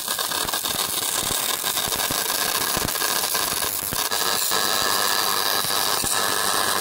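High-voltage argon plasma discharge in a homemade ion drive with a ring of magnets, fed by a microwave oven transformer at 2200 volts through a 10 kV DC rectifier. It makes a loud, steady hiss broken by irregular crackling clicks: the "ratchet sound" of the ionised gas discharging from the copper-tube capacitor.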